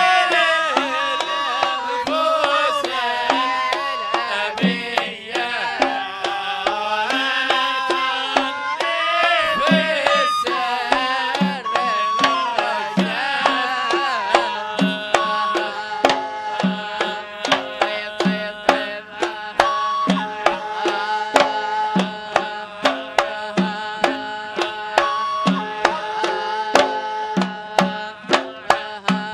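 Arabic wedding band playing: a bending, ornamented melody line over a regular hand-drum beat, with sharp percussion strikes coming thicker in the second half.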